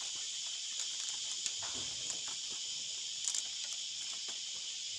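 Thin bamboo strips rustling and clicking as they are worked by hand into a woven basket's rim, with a few sharper clicks, over a steady high-pitched insect chorus.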